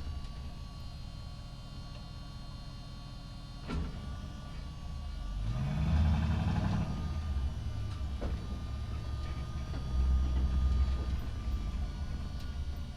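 Truck engine running at low speed in an echoing parking garage, rising in pitch as it accelerates about halfway through, with a couple of sharp knocks, like the truck bumping over joints or a ramp.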